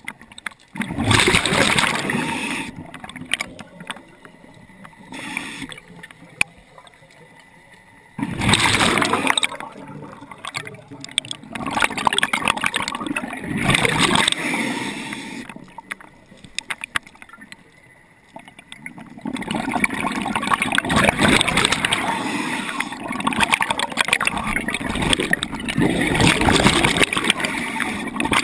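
Bubbling and gurgling heard underwater, in bursts a couple of seconds long with quieter hiss between, and a longer unbroken stretch over the last third. The bursts are a diver's exhaled breath bubbles.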